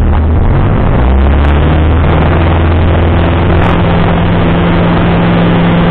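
Light single-engine aircraft's piston engine and propeller droning steadily in the cockpit. Its pitch shifts in the first second or two, then holds steady.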